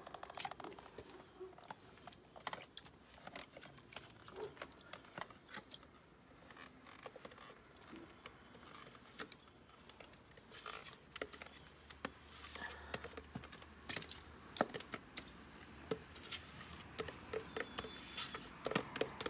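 A metal spoon scraping and clinking in plastic tubs of yogurt and against aluminium pots as the food is scooped out and dropped in, a run of irregular light clicks and knocks.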